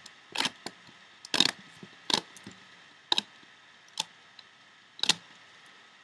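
Rubber bands and a loom hook being worked on a plastic Rainbow Loom, making about six short, sharp clicks and snaps spaced irregularly, roughly one a second.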